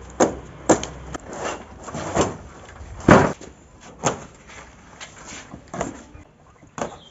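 A hammer knocking and prying at a strapped cardboard carton, with the cardboard tearing and scraping. It is a string of sharp knocks with rougher tearing noises between them, the loudest knock about three seconds in.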